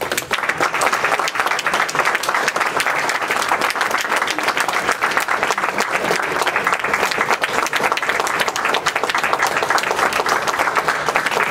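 Audience applause: many hands clapping steadily, breaking out suddenly and going on without a let-up.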